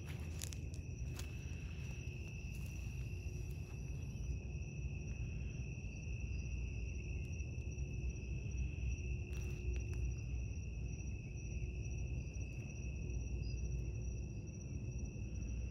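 Night insects trilling steadily on one high-pitched tone, over a low rumble, with a few faint taps.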